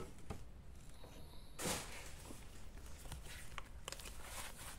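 Quiet handling noises as an LED light tablet and its coiled cable are picked up and moved: a short brushing sound about a second and a half in, then a few faint clicks.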